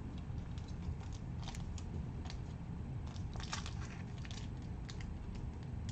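Foil wrapper of a baseball card pack crinkling and crackling in the hands as it is flexed and pulled open at its sealed end, in scattered small crackles.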